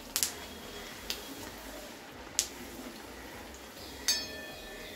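A puri deep-frying in hot oil in an iron kadai, the oil bubbling and sizzling steadily as the puri is pressed under a perforated steel skimmer so it puffs up. A few sharp clicks of the skimmer against the pan; the last, about four seconds in, rings briefly.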